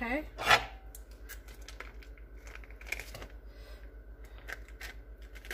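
Foil cream cheese wrapper crinkling as the cream cheese is squeezed out of it into a stainless steel bowl, with one sharp rustle about half a second in and light scattered crinkles and clicks after it.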